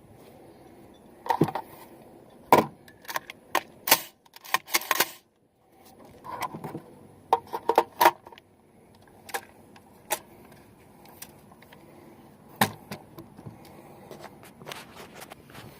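Irregular sharp clicks and light metallic rattles, with a short gap of silence near the middle.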